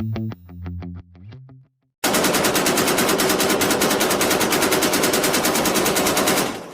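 Automatic gunfire sound effect: a long burst of rapid, evenly spaced shots lasting over four seconds, then stopping with a short echoing tail. It is preceded by the last notes of a distorted-guitar music riff and a brief silence.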